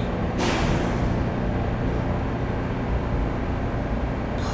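New York City subway train (L line) standing at a station, its equipment giving a steady low rumble. A burst of hissing comes about half a second in and fades over about a second, and a shorter one comes near the end.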